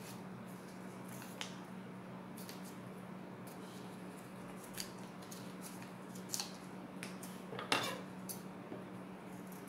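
Construction paper rustling and creasing as it is folded by hand, with scattered small crinkles and taps, and a louder clack near the end as a pair of scissors is picked up off a wooden table. A steady low hum runs underneath.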